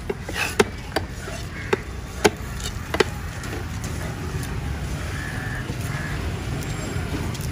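Cleaver chopping through mahi-mahi fillet onto a wooden chopping block: about five sharp chops in the first three seconds, then only a steady low background rumble.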